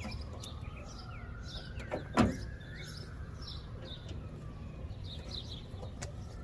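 Small plastic clicks of a tail light wiring connector being worked loose, with one sharp snap about two seconds in. Birds chirp in the background.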